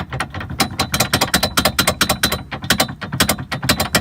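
Loose ball mount clanking in a trailer hitch receiver as it is shaken back and forth, a rapid run of metal knocks several a second: the play between mount and receiver that causes hitch rattle.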